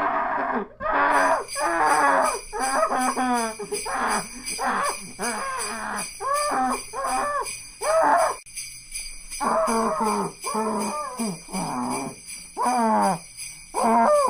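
Sleigh bells jingling steadily from about a second in, over a muffled person screaming 'ahhh' again and again in short wailing bursts whose pitch slides up and down.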